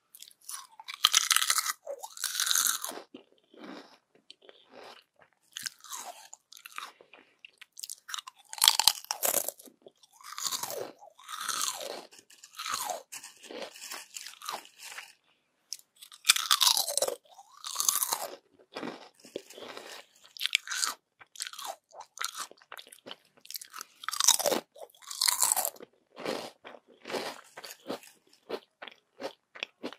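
Close-up crunching and chewing of crispy yam chips: loud crisp bites come in clusters every few seconds, with softer crackling chews between them.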